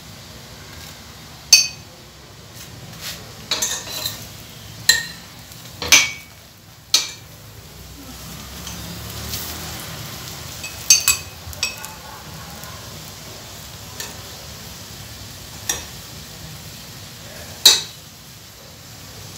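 Metal spoon scraping and clinking against a stainless steel frying pan while oil is spread over a frying chapati, with a dozen or so sharp clinks at irregular moments. A low sizzle of the oiled chapati frying runs underneath.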